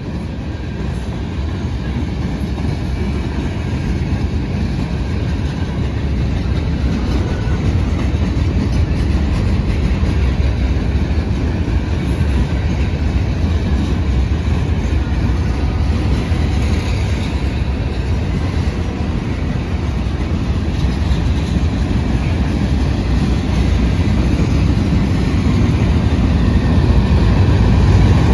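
Freight train cars rolling past at close range: a steady rumble and clatter of steel wheels on the rails, growing somewhat louder toward the end.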